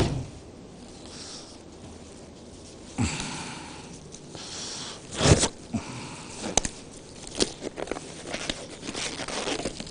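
Thin disposable gloves rustling as they are pulled onto the hands, with one short louder sound about five seconds in and scattered light clicks after it.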